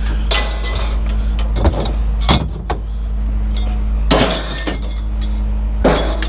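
A vehicle engine idling steadily while scrap metal clanks and crashes about five times, in short bursts of clatter.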